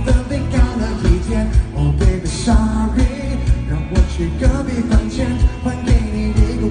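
Live pop song at a concert: singing over the band's backing with a steady, heavy drum beat.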